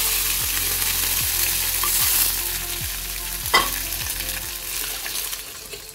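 Hot tempering oil with black mustard seeds, dried red chillies and curry leaves sizzling as it hits cold yogurt, the hiss slowly dying away. A single clink about three and a half seconds in.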